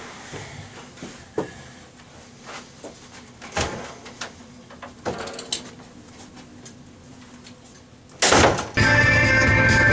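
Scattered footsteps and small knocks as two people walk out through an office door. About eight seconds in comes a sudden loud burst of noise, and music starts just after it.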